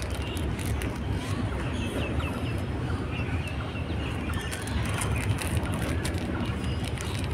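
Goods train of covered box wagons rolling past, a steady low rumble of steel wheels on rail with frequent clicks and rattles from the wagons.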